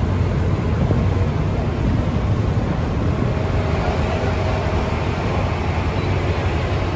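Vehicle ferry's engine running steadily under way, a continuous low drone, with a haze of wake water and wind noise over it.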